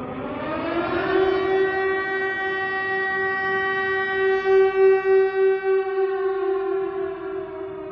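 Air-raid siren sounding an alert. Its wail rises over about the first second, holds one steady pitch, and begins to fall near the end.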